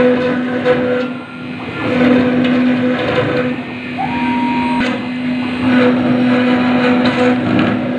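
CNC router spindle running at a steady hum while its bit grinds into granite, the cutting noise swelling and easing as the tool moves.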